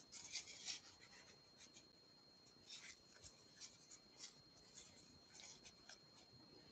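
Faint, irregular scratchy rustling of yarn being worked with a crochet hook.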